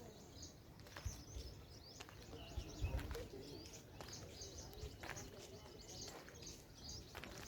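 Small birds chirping repeatedly in quick, short calls over a low rumble, with a few sharp clicks.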